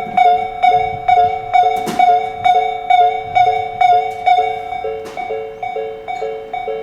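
Japanese railway level-crossing alarm ringing its repeating two-tone electronic ding, about two strokes a second, warning of an approaching train. It grows somewhat quieter in the last couple of seconds, and a brief rushing noise cuts across it about two seconds in.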